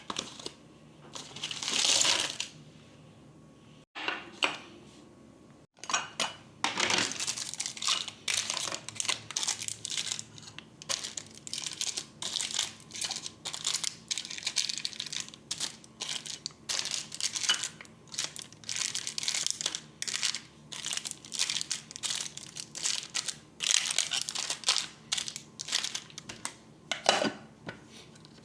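Plastic packaging being handled: a single swish about two seconds in, then many short crinkles, taps and clicks in quick succession.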